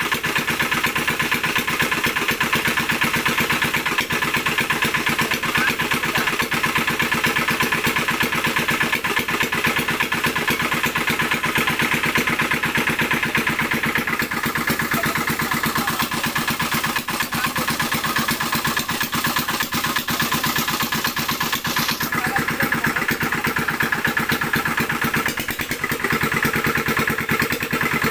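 A small engine running steadily, firing evenly and at a constant speed.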